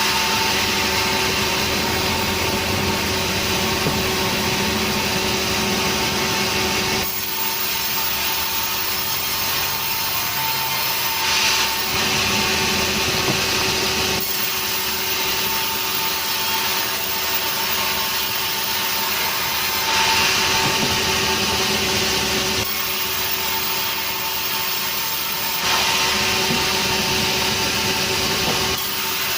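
Sawmill saw running steadily while cutting through nering wood, a steady motor hum under the rasp of the blade in the log. The cutting noise changes abruptly several times.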